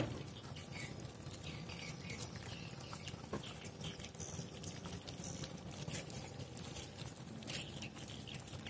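A group of puppies eating mushy food from a plastic tub: steady, irregular wet chewing, lapping and smacking, with many small clicks.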